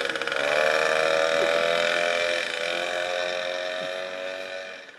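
Small moped engine buzzing at high revs as the bike pulls away. Its note holds fairly steady, sagging a little, and fades over the last couple of seconds as the moped rides off. Blue exhaust smoke marks it as a two-stroke.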